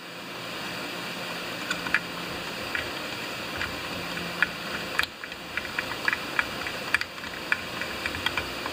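Light metallic clicks and taps of a long screwdriver turning a carburetor mounting bolt down inside a chainsaw's housing, scattered at first and more frequent in the second half, over a steady background hiss.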